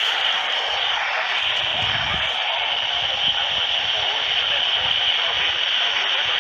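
Steady radio static from a receiver tuned to a weak broadcast signal: an even hiss with no voice coming through clearly.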